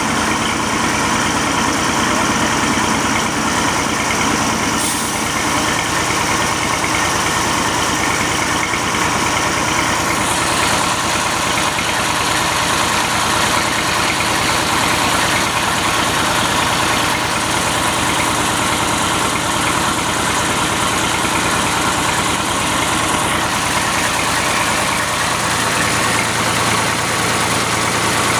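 Tractor diesel engine running steadily under load, driving a stone atta chakki flour mill through a flat belt and pulleys. About ten seconds in, a higher hiss joins the steady engine sound.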